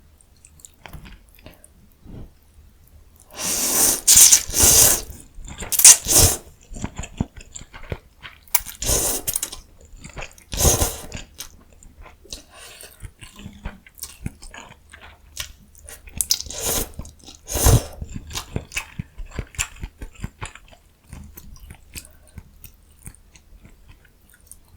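Close-miked eating sounds: a person biting and chewing food, with small wet clicks throughout and several louder bursts of biting or slurping.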